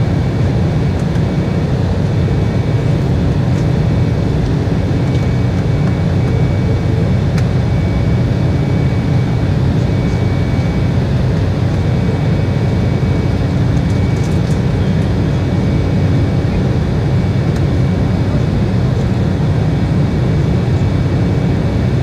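Steady in-flight cabin drone of an Embraer E190, heard inside the cabin by the window over the wing: the rumble of its General Electric CF34-10E turbofans and the airflow, with a faint steady high whine above it.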